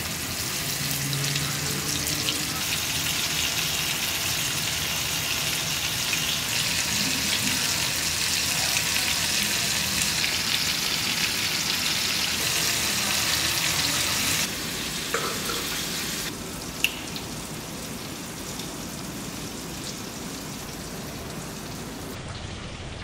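Marinated chicken pieces sizzling as they shallow-fry in oil in a pan, a steady dense hiss. About two-thirds of the way through it drops sharply to a quieter sizzle, and a single sharp click follows a couple of seconds later.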